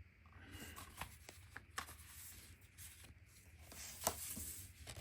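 Faint rustling and a few sharp clicks of a Blu-ray package being handled and opened by hand, louder rustling near the end.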